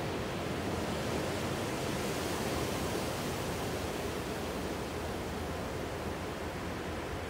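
Ocean surf washing onto a rocky shore, a steady rush that swells a little about two to three seconds in.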